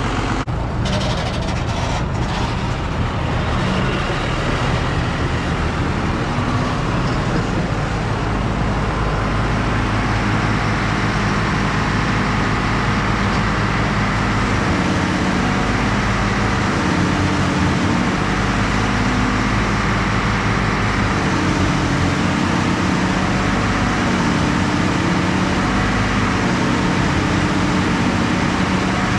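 Heavy farm engine running steadily at a constant speed, with a couple of brief knocks in the first two seconds.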